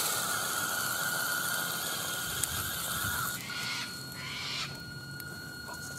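Axial Wraith 1.9 RC crawler's electric motor and geared drivetrain whining steadily as it drives, then dropping back about three seconds in, with two short bursts of throttle as it climbs into the brush.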